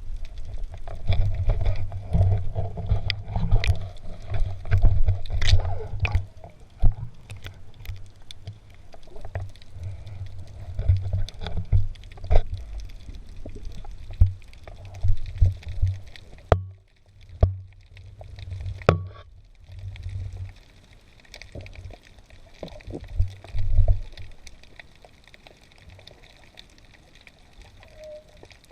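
Underwater sound through a camera's waterproof housing: a low rumble of water movement, with scattered sharp clicks and crackles. The rumble drops away for a few seconds just past the middle.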